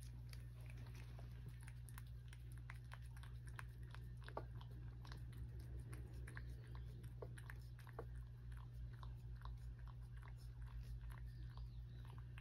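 A cat licking a lickable puree treat (Churu) from a small saucer: many soft, quick, irregular wet clicks of the tongue and mouth, over a steady low hum.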